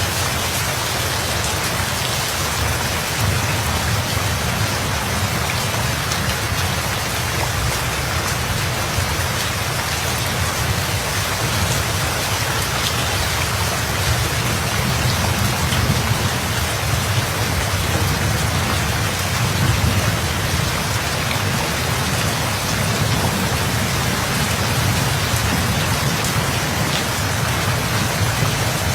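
Steady rain falling hard, with a low rumble of thunder underneath that swells a few times.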